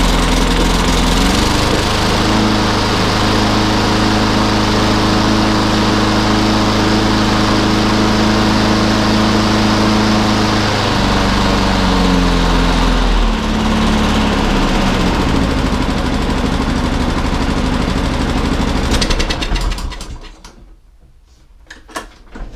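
A lawnmower's Honda-clone four-stroke engine running on choke just after it fires, its first run since the carburettor was cleaned. It runs steadily, drops in speed about halfway through and wavers briefly, then runs on until it cuts out near the end.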